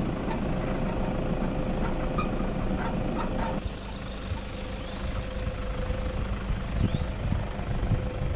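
Toyota Hilux ute driving slowly over a grassy farm track, its engine running with a steady low rumble. The sound changes abruptly about three and a half seconds in, and a few dull knocks come near the end.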